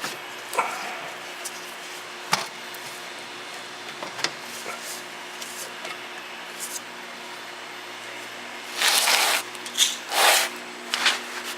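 A few sharp metallic clicks of sockets and tools, then two short bursts of a pneumatic air ratchet near the end, running in the wheel hub bolts.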